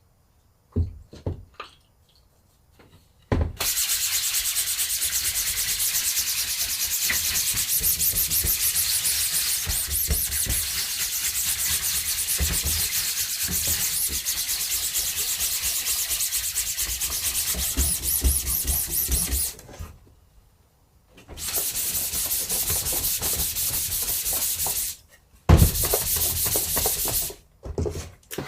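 A loud, steady rushing hiss that starts a few seconds in after some light knocks and runs for about sixteen seconds. It stops, comes back for about four seconds, then returns twice more in short stretches near the end.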